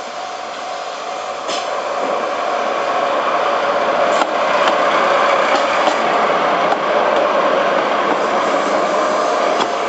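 Level crossing warning bell ringing steadily while a train approaches. The train's noise grows louder from about two seconds in.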